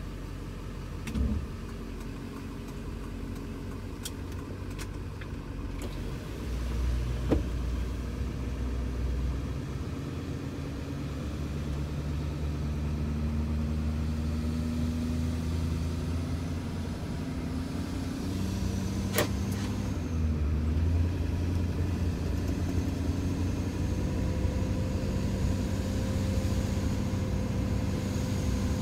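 Duramax turbo-diesel with a 4-inch exhaust, heard inside the cab: a steady low drone from the engine and exhaust that gets louder over the stretch as its pitch shifts, with a few sharp clicks.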